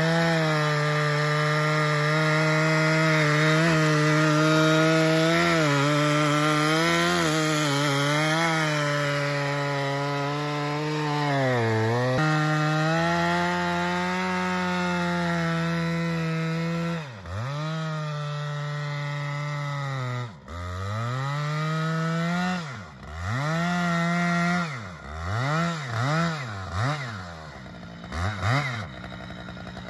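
Stihl MS 881 chainsaw's 121 cc two-stroke engine at full throttle, cutting through a maple log, with the revs sagging briefly under load about twelve seconds in. From about seventeen seconds the throttle is let off and blipped repeatedly, the engine dropping low between quick revs several times before running slowly near the end.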